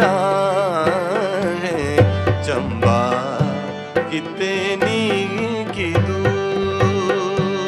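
A man singing a Himachali folk song in wordless, wavering melodic runs, accompanied by harmonium and electronic keyboard over a percussion beat.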